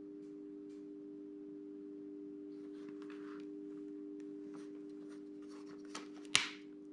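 Hands handling a motocross helmet and pressing a plastic Airflaps goggle-vent bracket onto its side: faint rustling and scraping, then a small click and a sharp click a little after six seconds in. A steady hum runs underneath.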